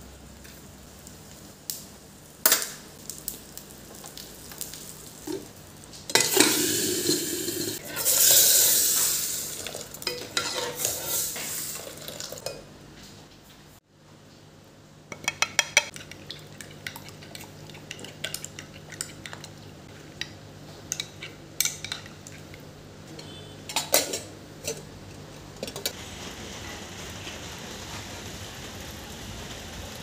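Spices sizzling in hot oil in a small steel tempering ladle, with a loud stretch of sizzling from about six seconds in that dies away over several seconds. After a break, a metal spoon clinks repeatedly against a glass bowl while yogurt is stirred.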